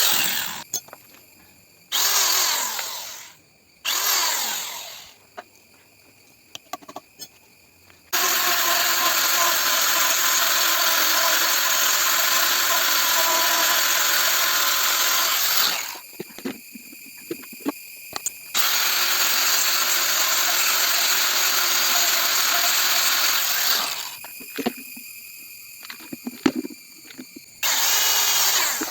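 Small electric power tool, like a drill, running in bursts. A long steady run of about eight seconds and a couple of shorter ones, some winding down as it is let off, with small clicks and knocks in the pauses.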